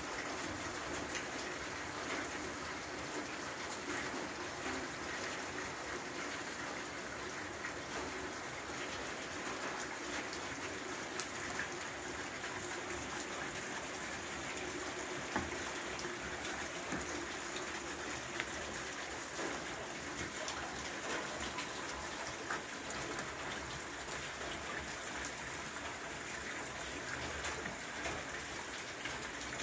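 Steady rain falling on a flooded flagstone yard: an even hiss of spatter with many scattered sharper drip ticks.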